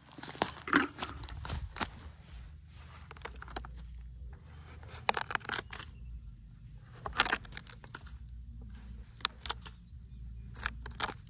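Metal tweezers scraping and prying crumbly rotten wood and bark out of a grub-bored log, in short bursts of crunching and crackling a few seconds apart.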